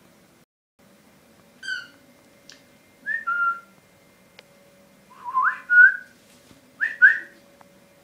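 Four short bursts of whistled notes, some sliding upward in pitch, with the last two bursts the loudest.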